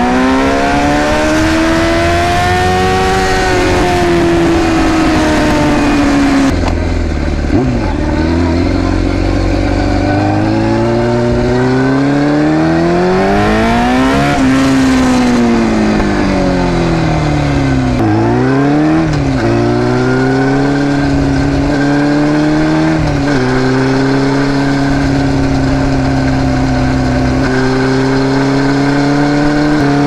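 Yamaha YZF600R inline-four running through a Two Brothers C2 exhaust, heard right beside the muffler while riding. The revs rise and fall twice as the bike accelerates and slows in the first half, then hold steady for the second half with a few brief dips.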